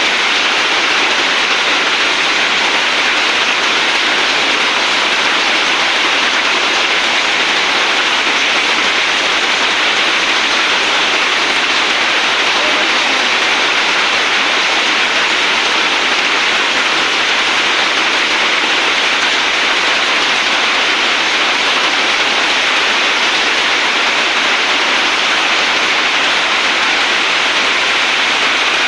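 Heavy rain pouring down in a dense, steady hiss, with no separate drops or hailstone strikes standing out.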